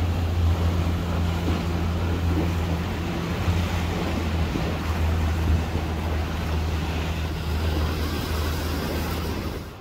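Boat engine running steadily under way, a low even hum under the rush of wind and water along the hull. The sound drops away abruptly near the end.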